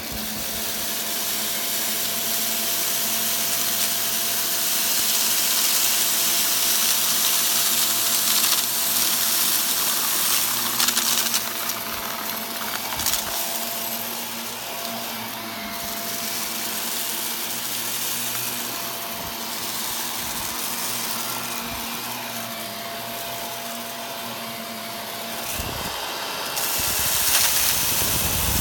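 Shark vacuum cleaner running: a steady rush of air with a motor whine over it, growing louder and softer as it works. There are a few sharp clicks and rattles along the way.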